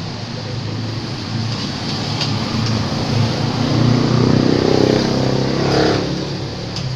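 A motor vehicle engine running, growing louder to a peak about four to five seconds in and then fading.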